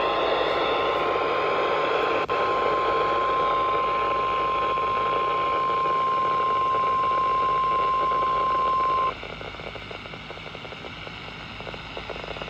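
NOAA Weather Radio warning alarm tone (1050 Hz) over radio static: one steady high tone for about nine seconds, then cutting off suddenly, leaving static hiss. It is sounded during the weekly test of the alarm that automatically switches on weather-alert receivers.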